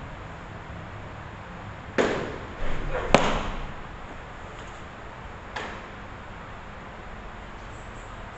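Pitched ball smacking into a catcher's mitt about two seconds in, followed by a few more sharp knocks of glove and gear over the next second, the sharpest of them the loudest. A fainter smack comes about five and a half seconds in.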